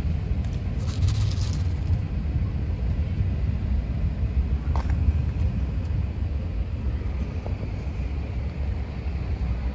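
Steady low outdoor rumble, with a brief rustle about a second in and a faint click near the middle.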